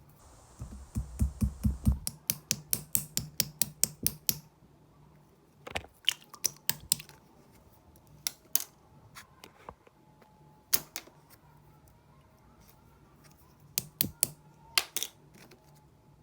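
Soft, runny slime being pressed and squeezed by hand, making crisp clicking pops: a quick run of about five a second a couple of seconds in, then scattered pops and short clusters.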